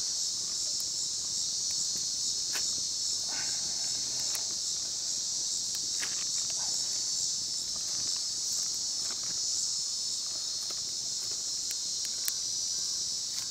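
Steady, high-pitched insect chorus, with a few light clicks and taps of a knife cutting raw meat by hand.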